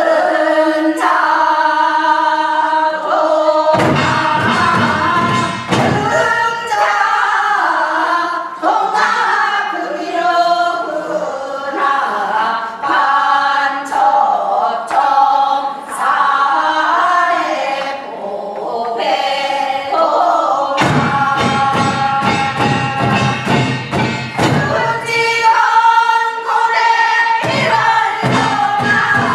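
A group of voices singing a Gyeonggi hwimori japga, a fast-paced Korean folk narrative song, in sustained, wavering lines. Drum strokes come in twice, about four seconds in and again in the last third.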